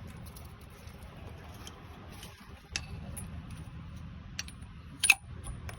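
A few scattered light metallic clinks of tools against engine parts, the loudest about five seconds in, over a low steady background rumble.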